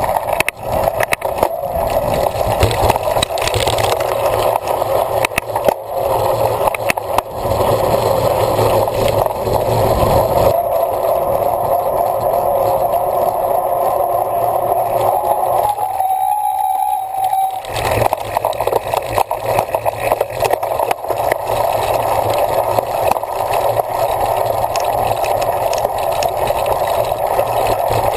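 Wind rushing over the microphone and rattling of a bicycle ridden fast over rough ground, with a continuous run of small knocks and jolts; the noise thins out briefly a little past halfway.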